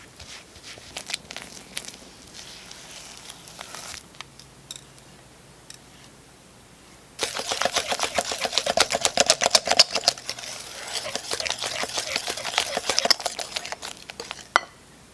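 Wire balloon whisk beating softened butter and icing sugar in a glass bowl: a fast, loud run of clicking and scraping strokes of the wires against the glass, starting about halfway through and ending with one sharp click. Before it, a silicone spatula presses and scrapes the butter into the sugar with soft, scattered ticks.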